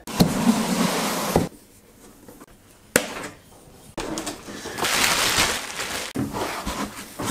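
Unpacking a plywood shipping crate: scraping and rustling for over a second, then a sharp click about three seconds in, then more rustling and handling of the crate and its packaging.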